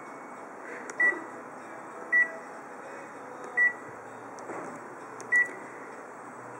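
Photocopier touch-screen control panel giving a short, high beep at each button press, four times in all at irregular gaps of one to two seconds.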